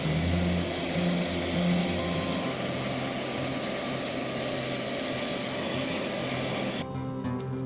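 Vacuum running steadily, its hiss dropping away suddenly about seven seconds in.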